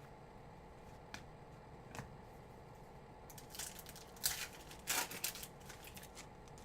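Trading-card pack wrapper being opened, a run of crinkly rustling and ripping bursts about three seconds in, after two light clicks.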